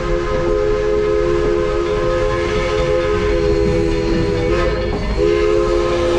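Steam locomotive whistle sounding a long, steady chord over a low rumble, cut off for a moment about five seconds in and then blown again.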